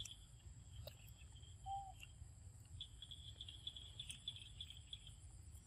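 Faint outdoor ambience: insects trilling on and off at a high pitch over a low rumble, with a few light clicks and one short high call about a second and a half in.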